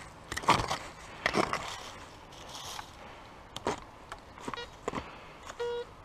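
A hand digging tool chopping into forest soil and leaf litter, a few sharp strikes, then a metal detector's coil swept over the hole giving short low beeps from about four and a half seconds in, signalling a metal target still in the ground.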